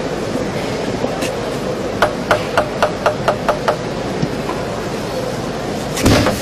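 Table tennis ball clicking against bats and table, a quick run of about eight sharp clicks, over steady arena background noise. The hall noise rises sharply near the end.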